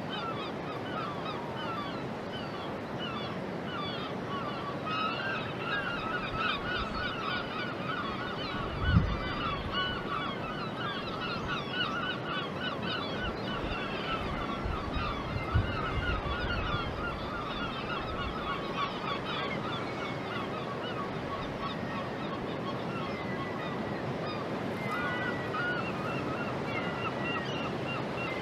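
Many birds calling over one another in a dense, busy chatter that swells through the middle and then thins out, over a steady background hiss. A heavy thump comes about nine seconds in and a smaller one a few seconds later.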